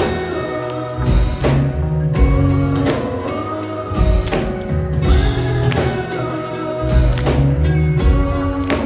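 Live concert music from the PA during the song's break between vocal lines: deep bass beats under a repeating melodic phrase that slides up and down in pitch, with no lead vocal.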